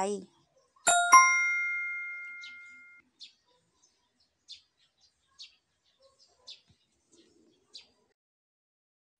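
A two-note bell-like chime: two quick strikes about a quarter-second apart, then a clear ringing that fades away over about two seconds. Afterwards come a few faint, very short high chirps, about one a second.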